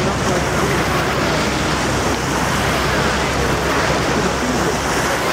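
Steady rushing noise of wind on the microphone mixed with the outboard engines and churning wash of the motor launches following the rowing eights.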